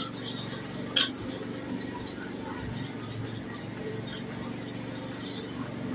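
A steel clipper blade being handled and worked on a sharpening stone: faint scattered scraping ticks, with one sharper click about a second in, over a steady low hum.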